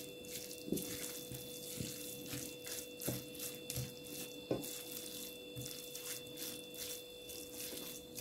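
Quiet kitchen sounds: a faint light tap or click every second or so, irregularly spaced, over a steady faint hum.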